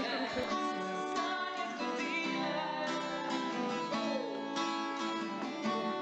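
Music led by a plucked acoustic guitar, with sustained notes changing every second or so.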